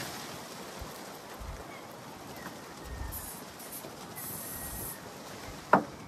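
Two short hisses of an aerosol can of Easy Start starting fluid being sprayed into the outboard's intake, to get the fuel-starved engine to fire. Near the end comes one sharp, loud knock.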